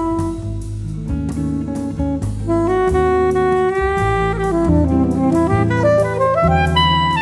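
Background jazz music with saxophone melody, bass and drums at a steady beat.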